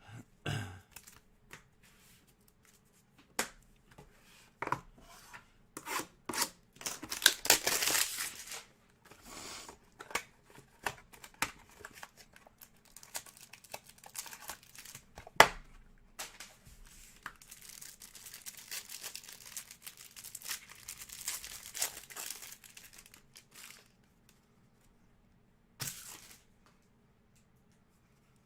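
Trading card hanger box packaging being torn open and its wrapping crinkled, in two spells of rustling with sharp clicks and one snap in the middle.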